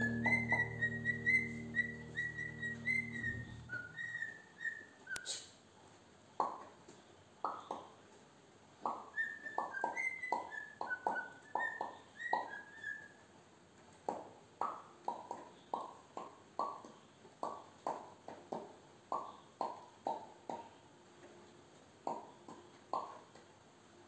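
Cockatiel whistling short high runs of notes, twice, with a long string of short, sharp clicks or taps at roughly one a second. Background music fades out in the first few seconds.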